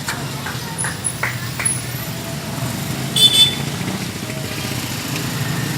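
Street traffic with a motorcycle engine running close by, a steady low hum. About three seconds in comes one brief, sharp, high-pitched sound.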